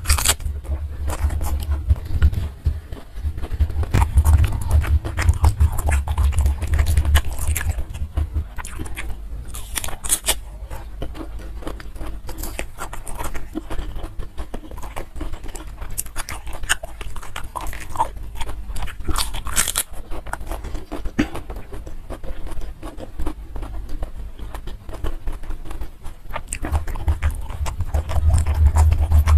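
Close-up mouth sounds of a person biting and chewing crunchy raw green vegetables with rice: dense, irregular wet crunches and clicks throughout.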